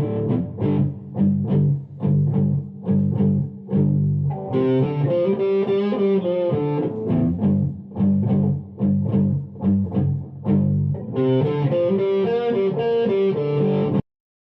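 Background music of guitars and bass with a steady pulsing beat, cutting off abruptly near the end.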